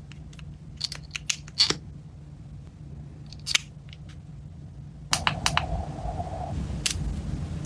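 Sharp plastic clicks and taps of cosmetics being handled: a black mascara-type tube being twisted and capped, then a heated eyelash curler. Several clicks come in the first two seconds and one more halfway. Another run of clicks starts about five seconds in, with a faint buzz lasting over a second.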